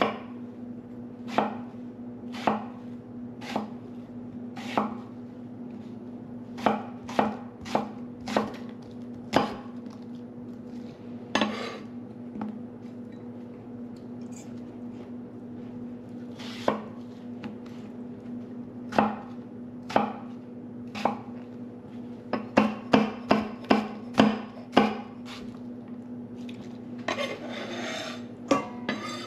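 Chef's knife chopping an apple on a wooden butcher-block board: separate knocks at first, then a quick run of chops, and near the end the blade scraping the diced pieces together across the wood. A steady low hum runs underneath.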